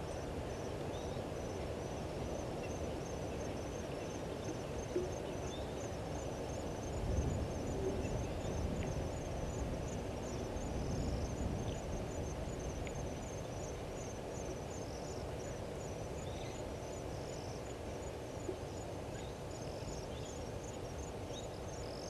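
Bushveld ambience: an insect chirping steadily in a high, even series, two to three chirps a second, over a low rumble of background noise that swells about seven seconds in and again around eleven seconds.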